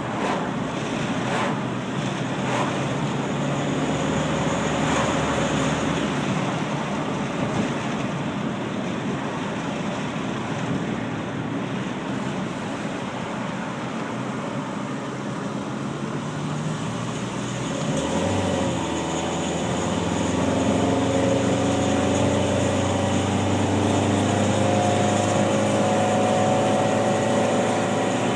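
1992 Honda Accord's four-cylinder engine pulling under load while driving, with the crackling, static-like noise from the front end that comes on under acceleration or on steep inclines. A new catalytic converter and flex pipe have not cured it. About two-thirds of the way through, the engine note climbs steadily as the car speeds up.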